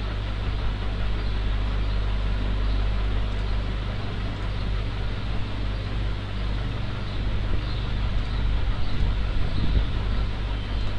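Steady low rumble with an even background hiss, growing slightly rougher near the end; no speech.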